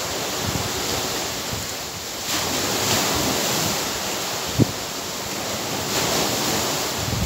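Sea surf washing against the shore under strong wind, with the wind buffeting the microphone; the noise swells up about two seconds in and again near the end. A single sharp tap sounds just past the middle.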